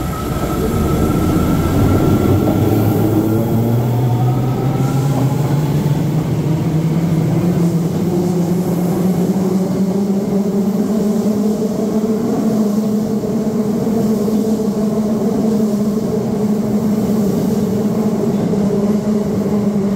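Kita-Osaka Kyuko 8000 series subway train pulling out and accelerating: its VVVF inverter and traction motors whine in several tones that climb steadily in pitch, over the steady rumble of the wheels on the track.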